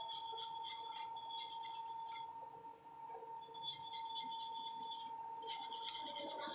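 Rotary wire wheel scrubbing a fresh weld bead on thin steel square tube: a steady motor whine under the hiss of steel bristles on metal. The hiss falls away for about a second, starting a couple of seconds in, and again briefly near the end.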